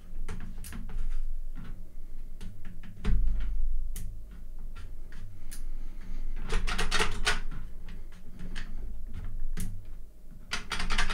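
Scattered clicks and knocks of hands working a plastic blaster's safety: the detent screw being backed off and the spring-and-detent safety knob turned so it clicks into its fire and safe positions. There is a dull bump about three seconds in, and runs of quick clicks about six and a half seconds in and near the end.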